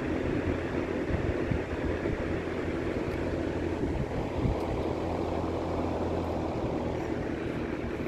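Vintage Sears Homart 20-inch box fan running steadily: a rush of air over a constant motor hum, its motor freshly rewired and its bearings cleaned and oiled. A few light clicks come about four seconds in as the three-speed switch is turned toward low.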